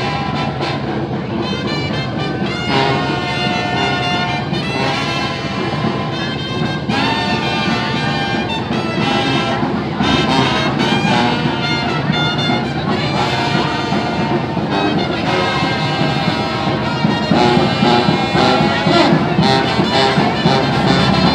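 Marching brass band playing in the street, a sousaphone carrying the bass among the horns. It grows louder about halfway through and again near the end as it comes closer.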